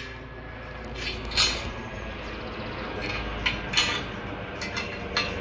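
Airbus EC135 helicopter passing overhead in the distance, a steady low rumble, with about six short, sharp clinks over it.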